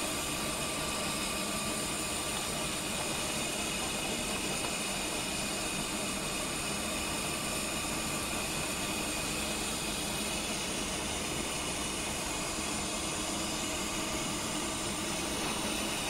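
Engine lathe running steadily while a parting tool cuts into a turning bronze bar under power feed: an even machine noise with several steady whining tones.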